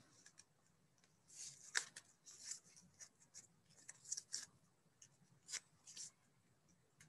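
Faint, scattered crinkles and rustles of a plastic spork and a strip of masking tape being handled and pressed against fingers.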